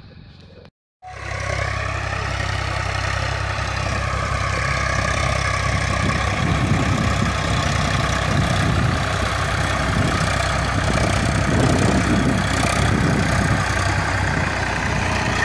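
Eicher tractor's diesel engine running steadily under load while it pulls a seed drill, growing slowly louder as the tractor draws nearer. It starts about a second in, after a brief drop to silence.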